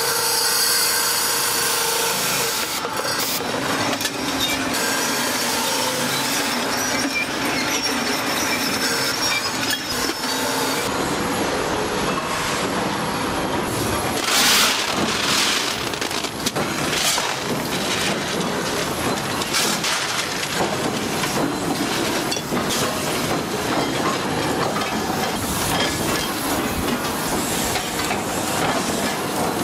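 A circular saw spinning and cutting copper-alloy bar stock into billets, a steady whine at first. Heavy factory machinery follows, with a run of sharp metal clanks about halfway through as a steel shovel scoops the cut copper billets, then forging-line machinery running.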